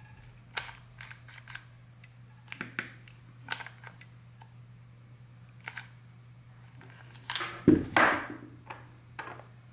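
Hot glue gun loaded with a gold sealing-wax stick, its trigger clicking in a series of short, sharp clicks as wax is squeezed out. About seven and a half seconds in comes a louder knock and rustle as the gun is set down, then two more light clicks near the end, over a faint steady hum.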